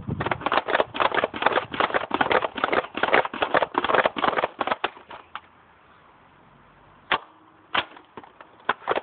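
Buzzbee Range Master air-pump dart blaster being pumped hard, a fast run of plastic pump strokes for about five seconds, followed by a few separate sharp clicks near the end.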